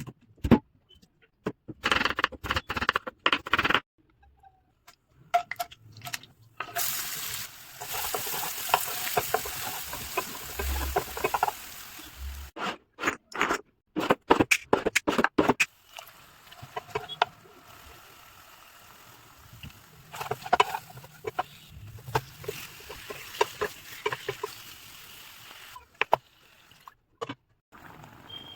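Cooking sounds in short clips with abrupt cuts between them: a utensil stirring and scraping in a pan, with clicks and knocks, and a stretch of sizzling hiss partway through.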